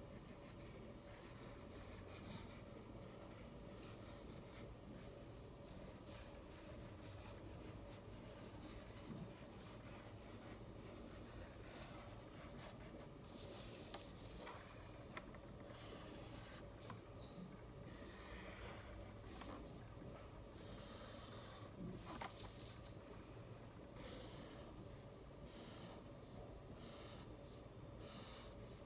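Black Sharpie marker drawing on paper: soft, scratchy pen strokes, with two louder, longer strokes about halfway through and again about three-quarters of the way in.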